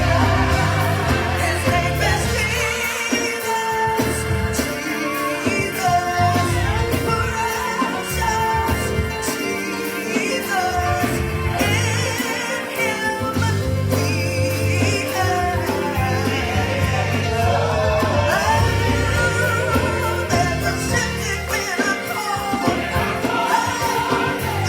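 Gospel choir singing with instrumental accompaniment: a steady bass line under the voices, with light percussion.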